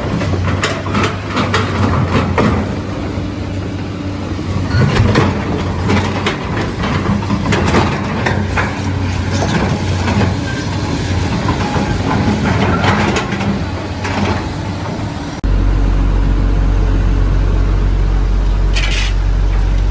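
Excavator engine running under load, with repeated knocks and scraping of the steel bucket against a concrete post. About fifteen seconds in, the sound switches suddenly to a steady low drone.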